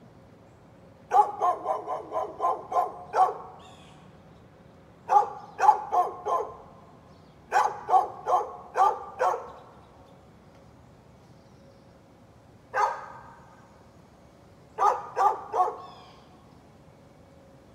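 A dog barking in quick runs of three to eight barks, with pauses of a second or more between runs and a single lone bark near the two-thirds mark.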